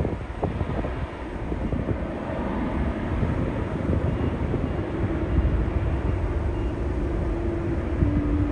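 Jet engines of a Qantas Airbus A330 running as it rolls along the runway, heard from a distance, with wind buffeting the microphone. A low steady hum comes in about halfway through and grows louder near the end.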